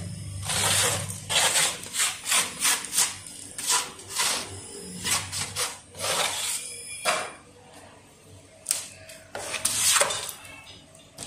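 Repeated rough brushing and scraping strokes across the surface of a round plaster of Paris casting as loose plaster is swept off. There are about a dozen quick sweeps in uneven bursts with short pauses between them.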